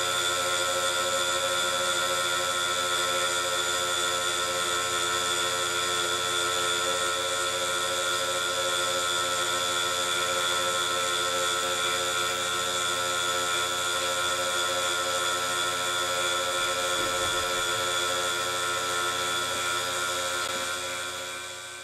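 Rose engine drilling frame's motor-driven cutter running at a steady whine with several fixed tones while it cuts a thread into a white plastic workpiece. It fades out near the end.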